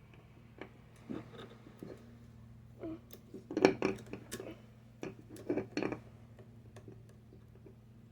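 Small metal transmission parts clinking and clattering as they are handled, with a few sharp knocks between about three and a half and six seconds in, the loudest near the start of that run.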